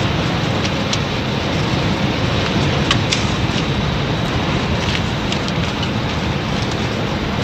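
Loud, steady mechanical din with scattered sharp clicks and rattles through it.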